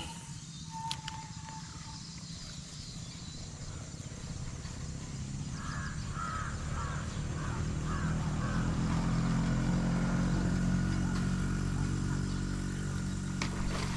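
A motor vehicle's engine passing, growing louder to a peak about ten seconds in and then fading. A bird calls in a quick run of about five cries about six seconds in.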